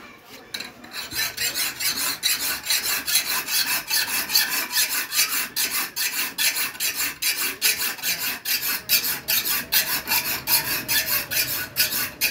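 Hand file rasping on a steel knife blade in fast, even back-and-forth strokes, about four a second, starting about a second in: filing a freshly forged blade to shape.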